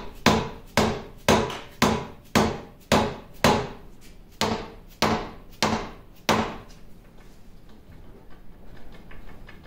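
Repeated mallet blows on the apron of a 1950 LeBlond Regal lathe, about two strikes a second with a short pause near the middle, knocking the stuck apron down out of its channel. The blows stop about six seconds in.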